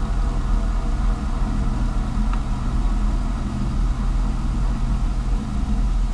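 Cessna 172's four-cylinder piston engine running steadily at low taxi power, a low drone heard from inside the cockpit.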